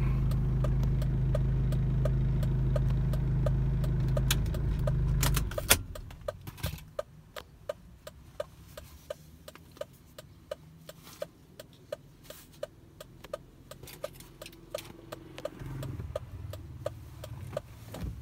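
Inside a car: a loud, steady low engine hum that cuts off suddenly about five seconds in. After that the turn-signal indicator ticks steadily, about twice a second, over faint traffic.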